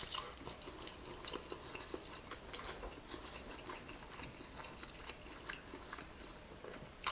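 A person chewing a mouthful of fried chicken close to the microphone: faint, irregular soft crunches and wet clicks.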